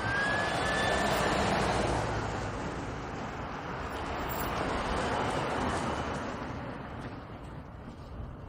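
Police car driving slowly past, its engine and tyres a steady rush that swells and fades. A siren's rising wail trails off about a second in.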